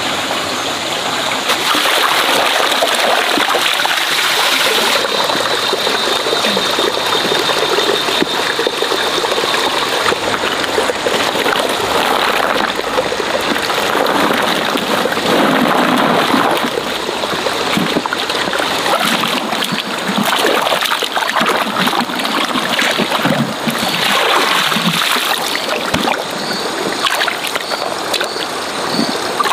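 Shallow stream running steadily over stones, with irregular splashing as a woven bamboo basket is worked through the water and hands reach in among the freshwater mussels.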